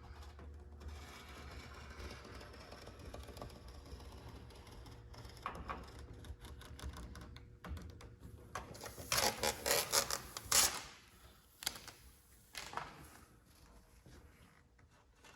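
Utility knife blade gliding on the glass, trimming perforated window vinyl: faint scratchy ticks, with a louder run of quick rasping strokes from about nine to eleven seconds in.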